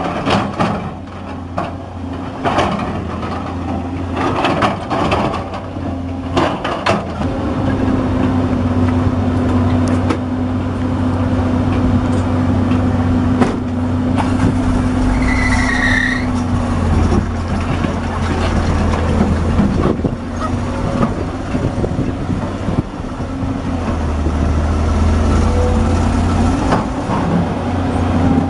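Volvo EC210B hydraulic excavator's diesel engine working under load while rock and soil clatter into a steel dump-truck bed during the first seven seconds or so. After that the engine settles into a steady drone as the machine swings and moves, with a brief squeal about halfway through.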